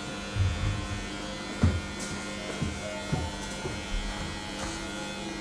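Electric hair clippers buzzing steadily as they cut up the back of the head, with a few soft low thumps about half a second, a second and a half and three seconds in.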